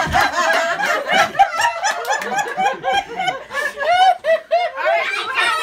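Several people laughing together, a mix of chuckles and giggles overlapping.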